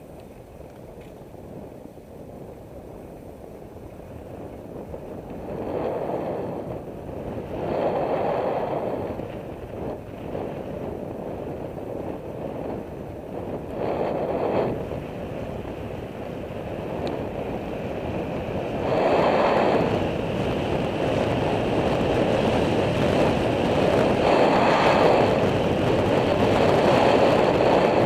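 Wind rushing over the microphone of a bike-mounted camera on a fast downhill road descent. It swells in repeated gusts and grows steadily louder as the bicycle picks up speed.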